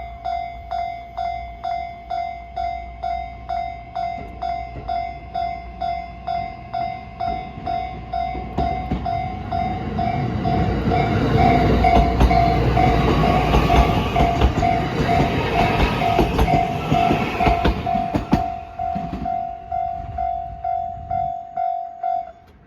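Level-crossing warning bell ringing in an even repeated ding, about one and a half strikes a second, while an E131 series electric train passes over the crossing. The train's wheels clatter over the rail joints for about ten seconds in the middle. The bell stops shortly before the end.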